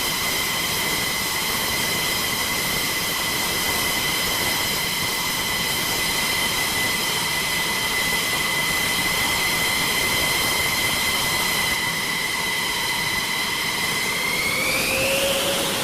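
F-16 jet engine whirring at ground idle: a steady high whine over a rushing hiss. Near the end the whine rises in pitch as the engine spools up.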